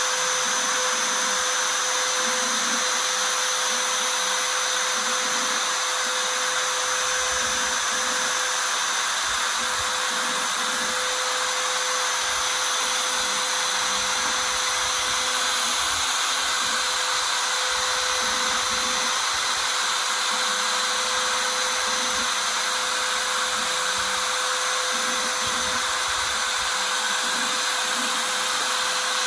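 CNC router spindle running with a steady high whine while a 1/4-inch V-bit engraves lettering into aluminium sheet, over a constant hiss of cutting.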